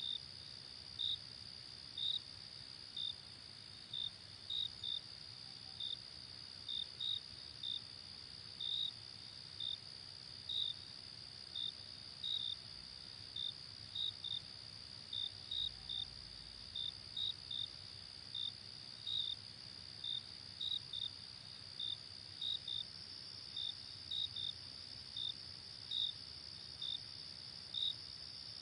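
Night insects, cricket-like: a steady high-pitched trill with short high chirps repeating irregularly, about one to two a second, over a faint hiss.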